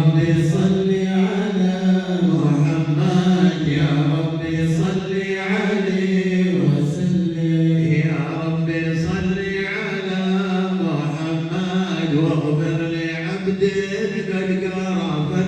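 A group of voices chanting Sufi devotional salawat in unison, unaccompanied, with long drawn-out melodic notes that move steadily without a break.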